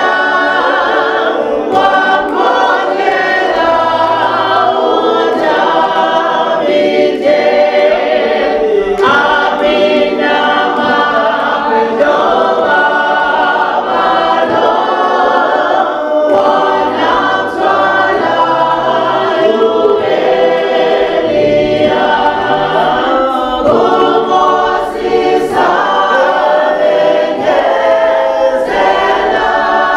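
Congregation singing a hymn a cappella, many voices together without instruments.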